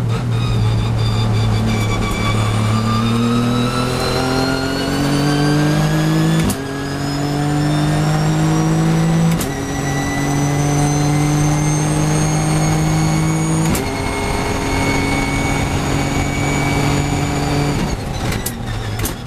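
Nissan GT-R GT3 race car's twin-turbo V6 at full throttle, heard from inside the cockpit, rising in pitch through the gears with three quick upshifts. Near the end it lifts off for hard braking, with a few quick clicks of downshifts.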